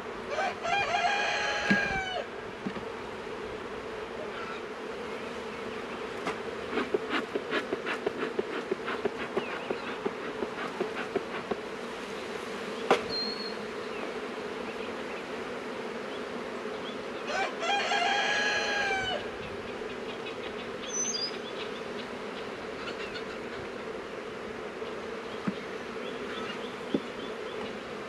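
Honeybees buzzing in a steady hum around an open hive. A rooster crows twice, once near the start and again about two-thirds of the way through. A run of light clicks and knocks comes about a third of the way in.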